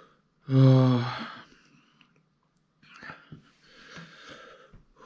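A man groans "oh" once in pain, then breathes heavily through his mouth a couple of times, with small mouth clicks, his mouth and throat burning from a Carolina Reaper chilli.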